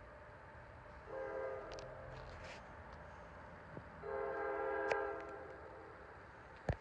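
NJ Transit train horn sounding in the distance: two blasts, a short one about a second in and a longer one about four seconds in. A sharp thump comes near the end.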